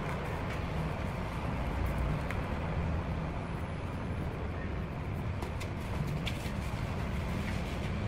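A steady low rumble of background noise with a few faint clicks scattered through it.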